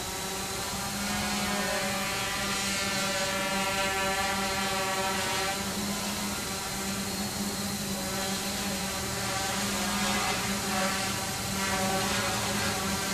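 Quanum Venture quadcopter hovering: its four Multistar brushless motors and propellers give a steady buzzing whine, the pitch wavering a little as it holds and shifts position.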